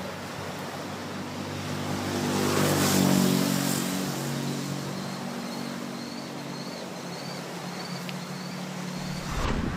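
An engine drones at a steady pitch, growing to its loudest about three seconds in and then easing off, over a constant wash of surf and wind.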